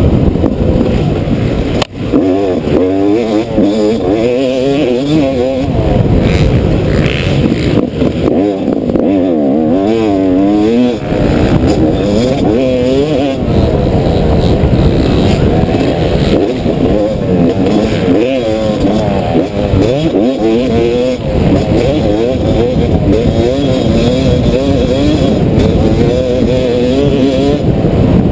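Yamaha YZ250 single-cylinder two-stroke motocross bike engine, heard from on the bike, revving up and falling off again and again as the rider works the throttle and gears, with wind noise on the microphone.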